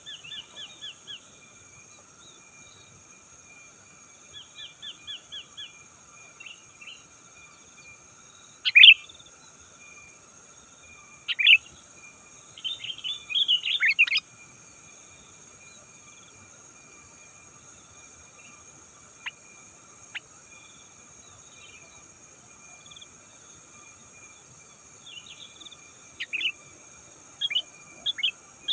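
Sooty-headed bulbul calling in short bursts of chirps, the loudest about nine, eleven and fourteen seconds in, then a quiet stretch before more rapid chirps near the end. A steady high hum runs underneath.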